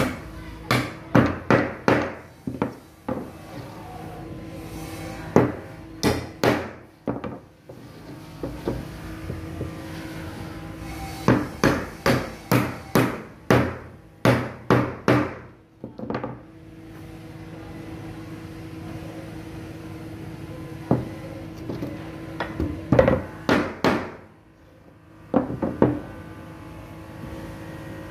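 Claw hammer striking wooden frame pieces, knocking the joints of a small wooden chair frame together. The blows come in runs of several quick knocks separated by pauses.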